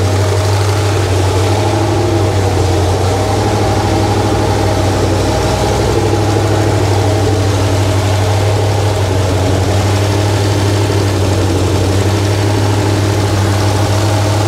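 Freshly rebuilt Ford 302 small-block V8 on an engine run stand, idling steadily during its first run after the rebuild.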